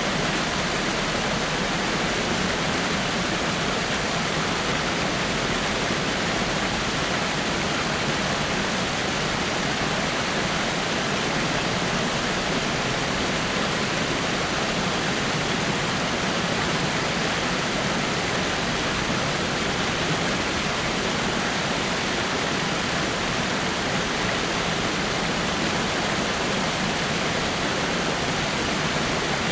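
Small waterfall pouring over rocks: a steady, unbroken rush of falling water.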